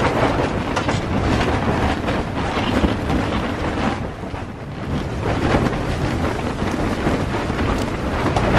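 Strong wind gusts buffeting a canvas hot tent, the fabric walls flapping and snapping over a steady rumble; the gusts ease briefly about four seconds in.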